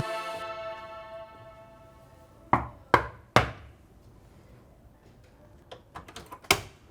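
Music cuts off and a held chord rings out and fades. Then three sharp knocks come in quick succession, followed near the end by a few light clicks and one more knock.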